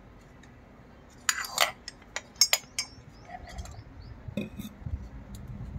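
Kitchen containers and utensils clinking and knocking on a countertop: a quick run of sharp clicks and clinks about a second in, a few more near four seconds in, then low muffled handling bumps.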